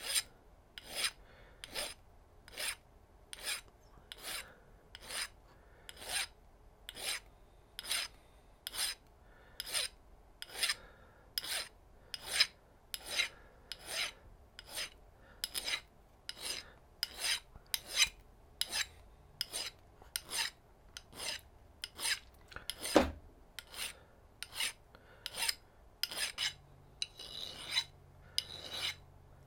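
A brass ring being sanded flat by hand: even rasping strokes, a little more than one a second, with one louder knock about 23 seconds in.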